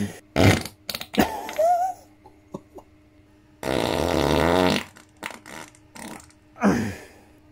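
A man breaking wind repeatedly: several short farts, then one long buzzing fart lasting about a second, a little past halfway, its pitch wobbling.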